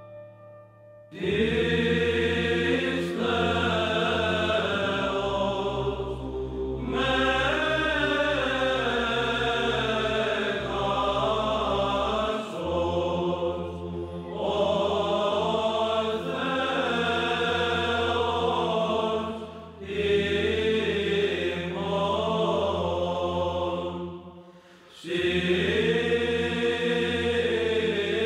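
Background music: a choir chanting in the Orthodox church style, melodic sung lines over a steady low held drone. It starts about a second in and breaks off briefly twice in the second half.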